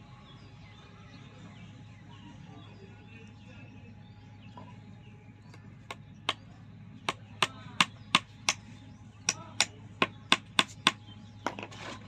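A ball-peen hammer tapping a thin metal pin into a wooden branch. About halfway through come about thirteen sharp, separate strikes in two quick runs with a short pause between, two or three blows a second.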